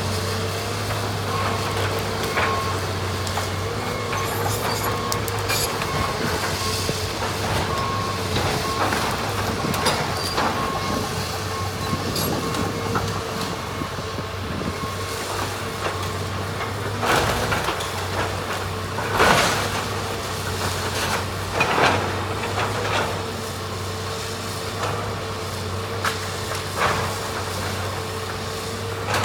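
House demolition: a heavy machine's engine runs steadily with a low drone and a constant whine. Now and then come sharp cracks and crashes of the structure breaking, the loudest about two-thirds of the way through and again a few seconds later.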